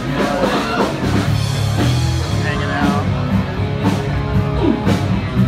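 Rock music playing, with drums and a bass line.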